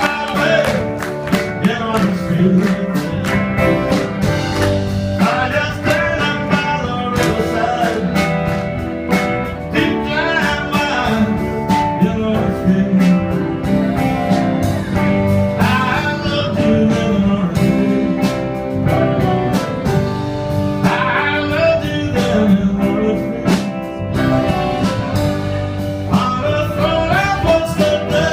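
A live band playing a song: a man singing over electric guitars, keyboard and drums.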